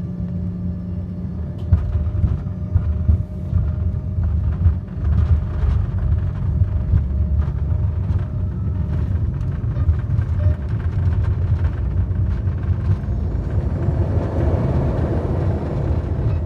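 An airliner's cabin noise on landing: a steady low engine drone turns, about two seconds in, into a louder rattling rumble full of knocks and jolts, as on touchdown and rolling down the runway. A rushing noise swells up near the end.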